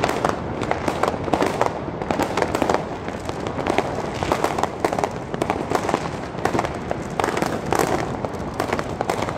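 New Year's Eve fireworks and firecrackers going off from all directions: a continuous barrage of many overlapping bangs and crackles, with no pause.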